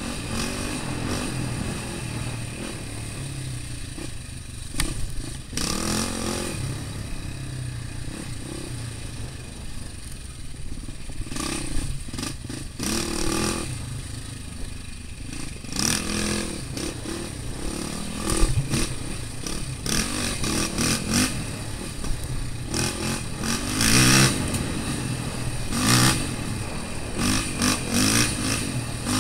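Off-road vehicle engine running under load on a rough dirt trail, revving up and easing off again and again, with clatter from the machine over rocky ground.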